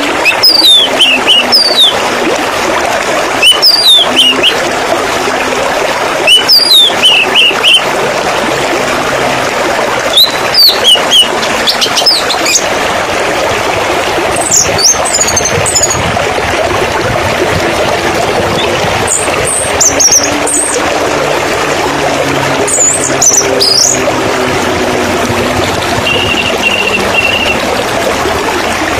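Steady rush of flowing, splashing water with small birds calling over it: short falling whistled notes every few seconds in the first half, then higher, sharper chirps, and a brief steady trilled note near the end.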